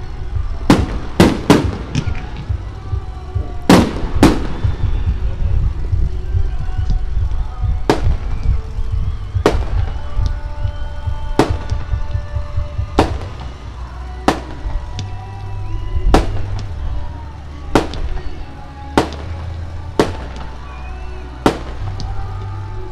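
Aerial fireworks shells bursting overhead, a string of sharp booms. They come bunched together in the first few seconds, then settle to one every second or two.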